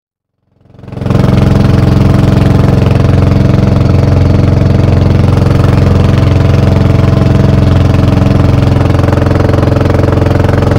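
Engine of a motorized outrigger boat (banca) running steadily under way. It fades in about a second in, after a brief silence.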